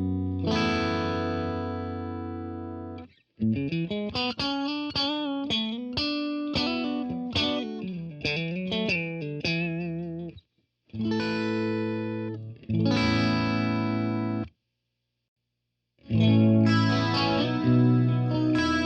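Electric guitar played through a Blackstar Studio 10 6L6 tube amp with some overdrive. It opens on a ringing chord, then a run of single lead notes with bends and vibrato, then a few held chords. The playing breaks off for about a second and a half and resumes with more chords near the end.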